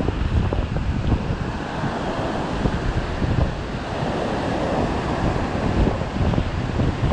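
Wind buffeting the microphone over surf breaking on the shore, with a louder rush of water about four seconds in.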